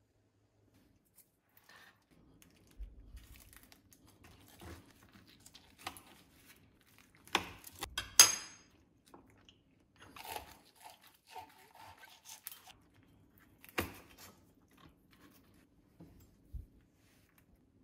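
A knife carving a whole air-fried chicken on a wooden board: the crisp skin crunches and crackles and the meat tears, with scattered sharp clicks of the blade. The loudest click, about eight seconds in, rings briefly.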